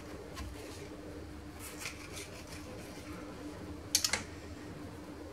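A knife slicing through a soft rolled dough log and clicking against a granite countertop, with a quick cluster of sharp clicks about four seconds in and a few softer ticks before. A steady faint hum runs underneath.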